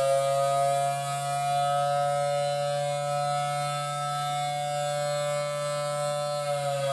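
Federal Signal Thunderbolt 1000T rotating-horn siren sounding the Attack signal: its wail climbs a little, holds a steady pitch, and begins to fall near the end, with a steady low hum beneath it.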